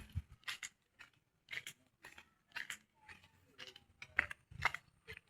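Footsteps crunching on gritty ground, short crisp crunches about twice a second at a walking pace.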